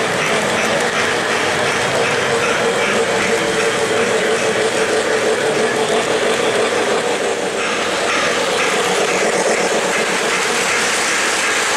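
O-gauge three-rail model trains running on the layout track: a steady rumble and clatter of wheels on rail and motors, whose mix shifts about three-quarters of the way through as a train passes close by.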